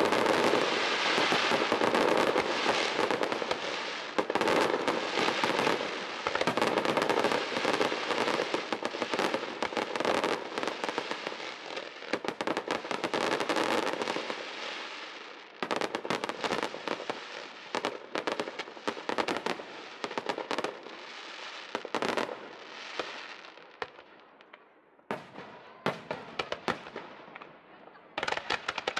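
Fireworks barrage: a dense, continuous rattle of bursts and crackling stars for about the first half. It thins to separate bangs and cracks, then dies down near the end with only a few sharp cracks.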